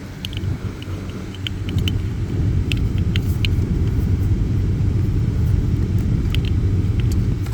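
A steady low rumble, a little louder from about two seconds in, with scattered light clicks and taps as the wire and trim are handled under the dashboard.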